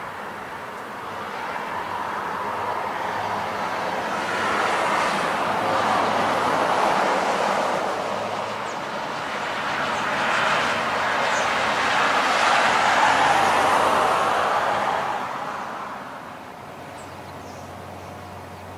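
Road traffic passing: a noise of tyres and engines that swells twice and fades away near the end.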